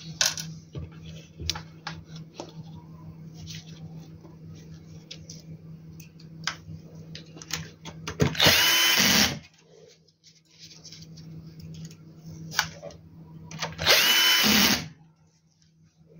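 Electric drill-driver run twice in bursts of about a second each, driving screws during reassembly of the inverter. Small clicks and knocks of parts and screws being handled come in between.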